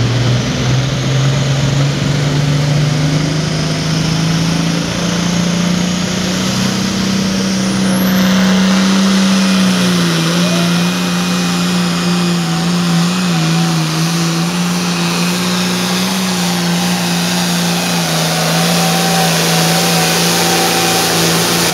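Hot farm pulling tractor's turbocharged diesel engine running hard under load. Its pitch climbs steadily over the first several seconds, dips about ten seconds in, then holds steady.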